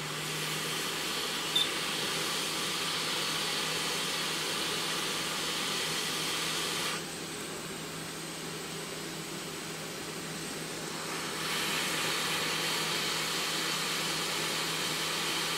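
Hot air rework gun blowing steadily as its nozzle heats solder joints on a small circuit board. It gets quieter about seven seconds in and comes back up about four seconds later.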